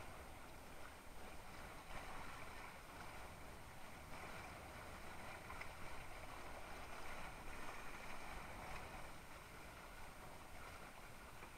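Water rushing and splashing along the hull of a Mistral Superlight windsurf board under sail: a steady hiss that swells and eases, over a low rumble.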